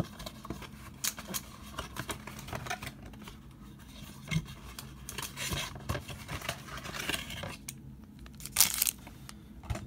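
A trading-card blaster box being torn open by hand, with crinkling plastic wrap and ripping cardboard in irregular bursts. There is one sharper, louder rip near the end.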